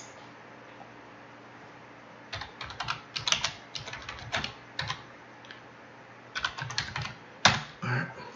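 Computer keyboard being typed on: quick bursts of keystrokes starting about two seconds in, ending in one louder keystroke near the end.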